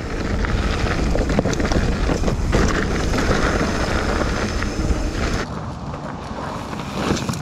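Wind buffeting the microphone of a mountain-bike camera while riding a dirt trail, with tyre noise and scattered clicks and rattles from the bike. The higher hiss drops away about five and a half seconds in.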